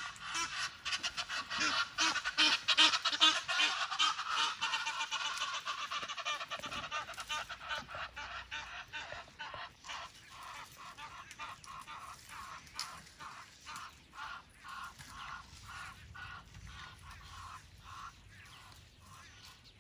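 A bird calling in a fast run of short repeated notes, loudest in the first few seconds, then slowing and fading away.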